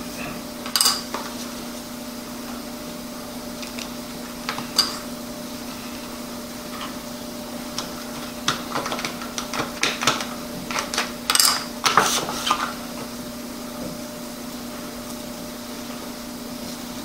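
Scattered light clicks and taps of small objects being handled on a tabletop, coming in small clusters, most of them around the middle, over a steady low hum.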